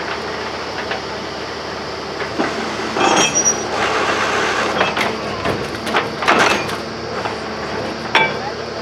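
Borewell drilling machine running steadily on its motor, with a cluster of metallic clanks and rattles in the middle and a short metallic squeal near the end.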